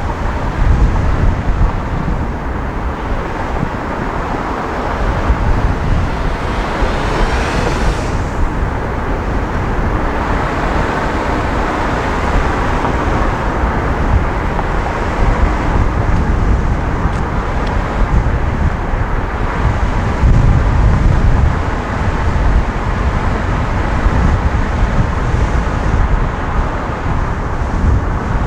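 Road and traffic noise picked up by a camera mounted on the roof of a moving van: a steady heavy rumble with wind noise on the microphone. About six seconds in a whoosh rises in pitch and cuts off suddenly a couple of seconds later.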